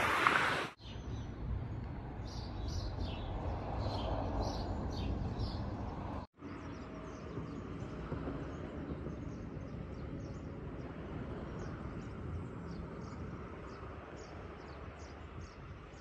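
Outdoor ambience: a steady low rumble of distant road traffic with small birds chirping again and again over it. The sound drops out briefly twice, about a second in and about six seconds in.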